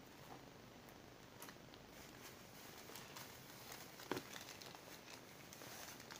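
Faint rustling and crinkling of a thin plastic bag as a hand rummages through it, with a slightly sharper rustle about four seconds in.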